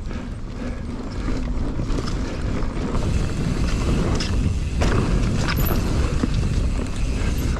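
Mountain bike ridden along a dirt jump line: tyres rolling over the dirt and the bike rattling, growing louder over the first couple of seconds, with a few sharp clacks around the middle.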